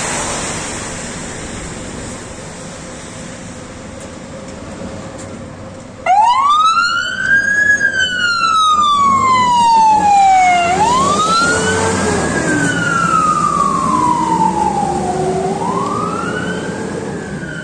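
Fire engine siren coming on suddenly about six seconds in, after a few seconds of quieter vehicle noise. It sounds a slow wail, each cycle climbing quickly and then sliding down over about four seconds, over and over: a fire tender running on an emergency call.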